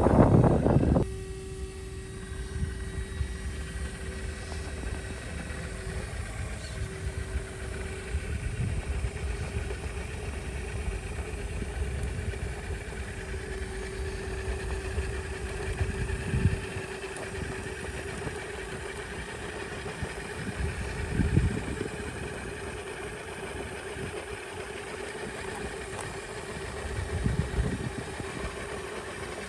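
Radio-controlled rock crawler's electric motor and geartrain whining steadily as it creeps over rock, with a louder burst at the start and a few brief surges later on.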